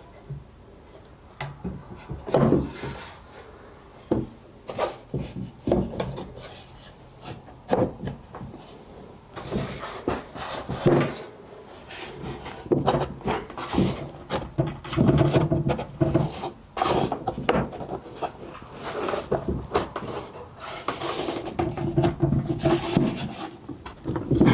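Wooden drawer parts being handled on a workbench during a glue-up: irregular knocks, taps and scraping, rubbing sounds of wood on wood.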